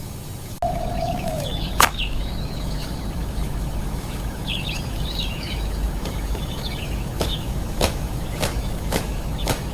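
Small birds chirping over a steady low hum. A short held tone that dips at its end comes near the start, and a string of sharp taps comes in the second half, about one every half second.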